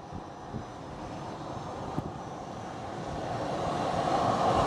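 Light twin-engine propeller airplane on approach with its landing gear down, the drone of its engines and propellers growing steadily louder as it comes nearer.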